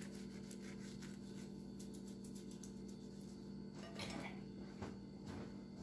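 Faint handling sounds of cilantro leaves being picked off their stems into a glass bowl, with a few soft rustles and clicks about four seconds in and near the end, over a steady low hum.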